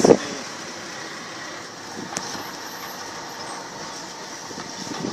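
Steady road and engine noise of a moving ambulance, heard from inside it. A brief voice sounds right at the start, and there is one short sharp knock about two seconds in.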